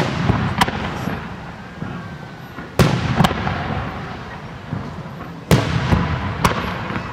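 Aerial firework shells bursting overhead: about six sharp bangs, coming in three pairs a little under three seconds apart, each followed by a low rolling rumble.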